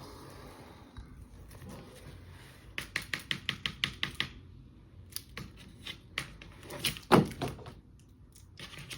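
A quick run of light clicks or taps, about seven a second for just over a second, then a few scattered taps and one louder knock near the end.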